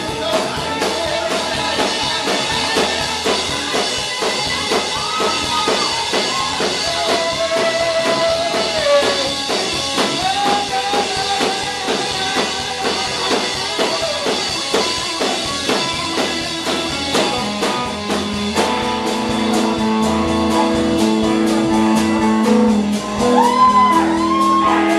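A live rock band playing loud, with drums, electric guitar and a singing voice. In the last several seconds long held notes ring out.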